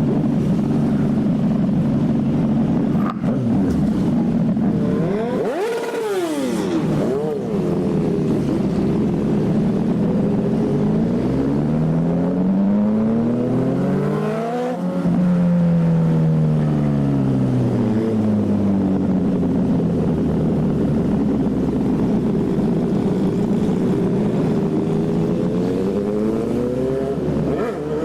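Several motorcycles running together at road speed. One engine is revved up sharply about six seconds in. Midway, engine notes rise and fall across one another, and the revs climb again near the end.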